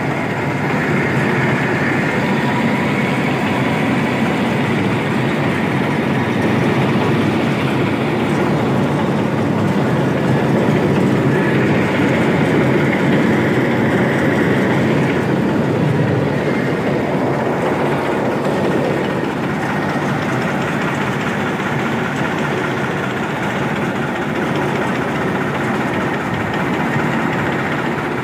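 Tractor-driven rice mill running: a steady, dense mechanical din of spinning belts, pulleys and shaking machinery, with the New Holland 3630 tractor's engine underneath. It gets a little louder midway, then settles.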